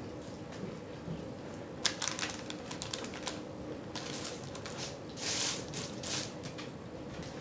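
Close-miked chewing and lip-smacking on a mouthful of burger: irregular wet clicks and smacks, thickest about two seconds in and again around five to six seconds.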